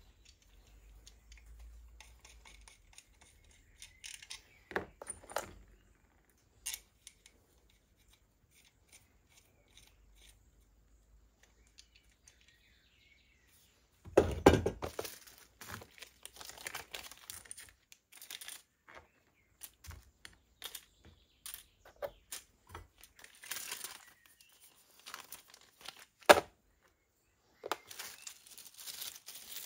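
Small metal parts clicking and clinking on a workbench as a hand rivet-nut tool is handled and steel rivet nuts are picked out of a plastic organiser box. A few clicks come in a mostly quiet first half, then busier clinking and rustling with a louder metallic clatter about halfway through.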